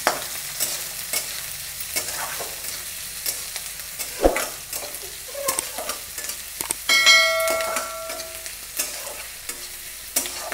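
A metal spatula stirring and scraping chopped onion and green chilli sautéing in oil in a metal kadhai, with a light sizzle and repeated scrapes against the pan. About seven seconds in, a metallic ring sounds for over a second.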